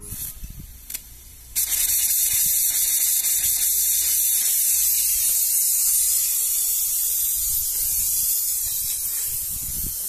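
Homemade compressed-air evaporator washer spraying through its copper wand nozzle: a steady high hiss starts suddenly about a second and a half in, after a couple of short clicks as the red valve lever on the air line is opened.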